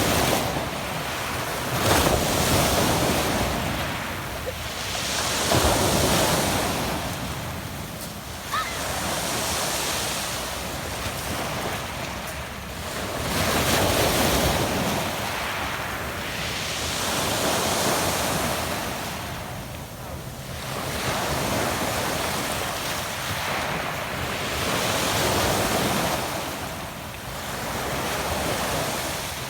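Adriatic sea waves washing onto a pebble beach, the surf swelling and ebbing about every four seconds in a steady rhythm.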